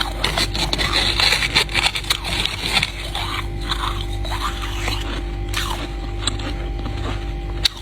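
Ice being bitten and crunched in the mouth, close to the microphone: a dense run of crackling crunches for the first few seconds, then scattered sharp cracks and scrapes, over a steady low hum.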